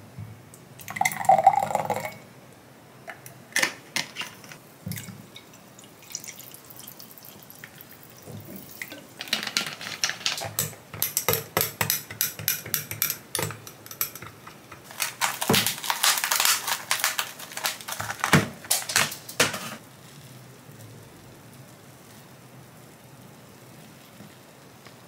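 Kitchen prep sounds: dishes and utensils knocking and clinking, with two long stretches of dense, rapid clatter in the middle.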